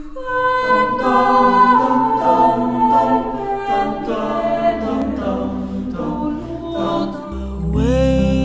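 Mixed choir singing a Christmas song a cappella in several parts, in slow held chords. Near the end, a low accompaniment comes in and a single female voice takes over the melody.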